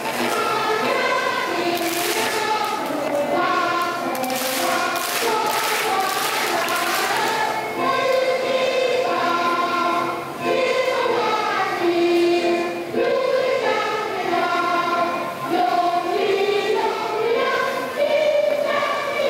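Choir singing a slow melody of long held notes with music. A hissy, noisy wash rises over it for a few seconds in the first half.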